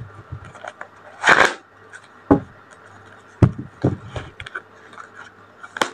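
Tarot cards being handled: a short rustle about a second in, then a few light scattered taps and clicks of cards on a surface, over a faint low steady hum.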